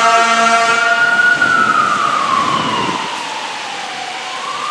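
Fire engine siren wailing: its pitch rises for about a second and a half, falls slowly, then starts rising again near the end. For the first second and a half an air horn blares over it, then stops.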